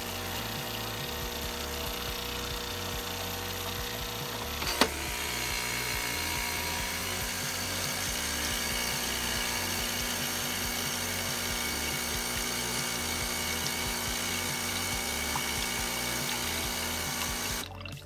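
Nespresso capsule machine's pump running steadily as it pushes hot water through the brew head, with water trickling into a mug. There is a single sharp click about five seconds in, and the pump cuts off just before the end.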